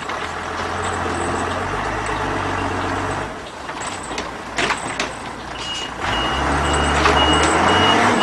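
A heavy truck's engine is running, fading in the middle and coming back strongly about six seconds in. A reversing alarm beeps repeatedly over the last couple of seconds.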